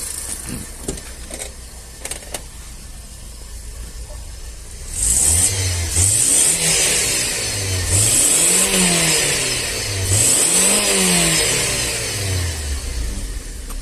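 Four-cylinder car engine running quietly, then revved up and let fall back several times from about five seconds in. The revving clears out the freshly replugged cylinder that is fouled by oil, puffing smoke from the exhaust.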